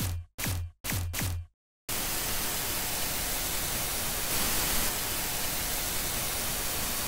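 A few short electronic bass pulses at about two a second, then an even TV-static hiss from about two seconds in.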